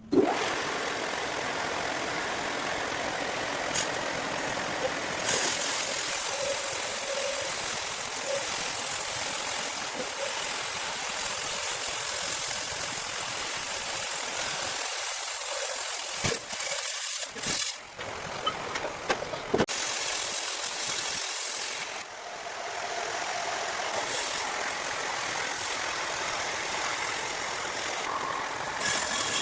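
Heavy sawmill machinery running: a steady, noisy rush with a hissing top, changing abruptly several times and dropping out briefly twice.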